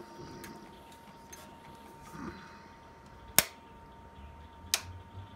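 Two sharp clicks a little over a second apart as a four-jaw chuck on a mini metal lathe is handled and turned by hand against a dial indicator, over a quiet shop with a faint steady tone.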